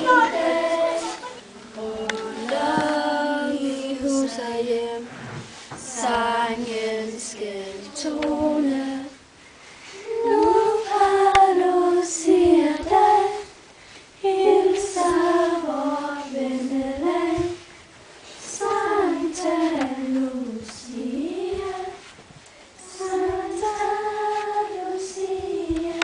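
A group of young scouts singing a Lucia song together as they walk in the candlelit procession, in sung phrases a few seconds long with short breaks between them.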